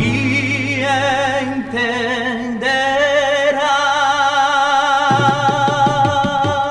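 Recorded song playing: a melody line held in long notes with vibrato, joined about five seconds in by repeated plucked low notes.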